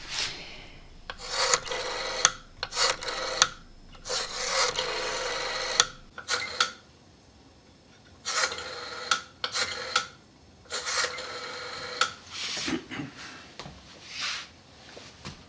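Hand saw cutting wood in rasping back-and-forth strokes, mostly about a second long and separated by short pauses, with a faint ringing from the blade in the louder strokes.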